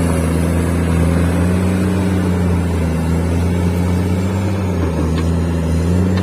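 Heavy diesel engine of mining machinery running steadily with a low drone, its pitch shifting slightly a few times.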